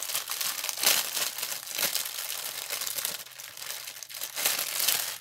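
Small clear plastic bag crinkling as hands handle and fold it, in irregular rustling bursts.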